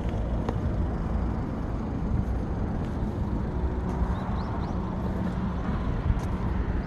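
Road traffic rumbling steadily from vehicles on the road, with an engine hum becoming steadier in the second half.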